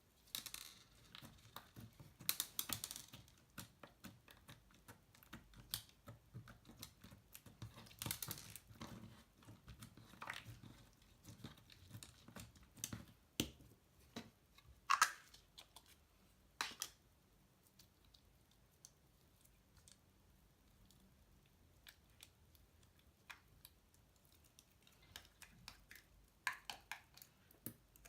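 Slime being squished and worked by hand, giving irregular crackling clicks and little pops. The clicks come thick for the first half, thin out for several seconds, then pick up again near the end.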